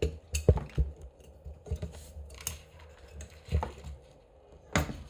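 Irregular clicks and knocks of a CPU heatsink being set down and fastened onto the motherboard, metal and plastic parts tapping and snapping into place, about seven in all with the loudest about half a second in.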